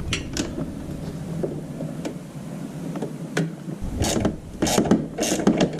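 Ratchet wrench on an extension clicking as it tightens the fuel pump mounting: scattered single clicks at first, then quicker runs of clicking in the last two seconds.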